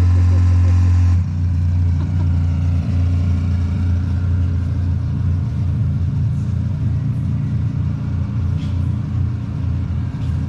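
Motorcycle engine sound, most likely a recording played in the exhibition: a steady, even drone until about a second in, then an uneven low rumble.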